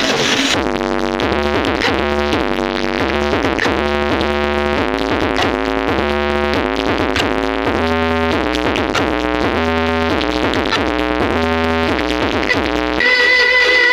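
Loud electronic dance music with synthesizer chords over a repeating deep bass line, played through a large sound system. The music switches abruptly to a different section near the end.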